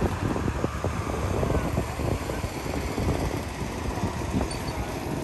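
A steady low rumble of motor-vehicle engine noise, like road traffic going by.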